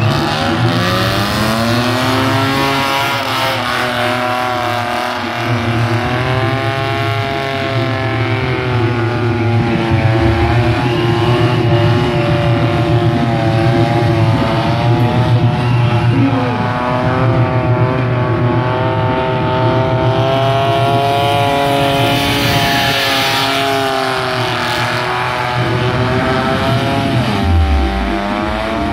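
Car engine held at high revs through a smoky burnout and donuts, its pitch wavering up and down as the driver works the throttle, with tyres squealing and spinning. A louder hiss of tyre noise swells about two-thirds of the way through.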